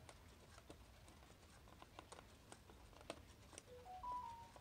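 Faint clicks and taps of an AA battery being handled and fitted into the plastic battery holder of a quartz wall-clock movement, with a few short squeaks near the end as it is pressed into place.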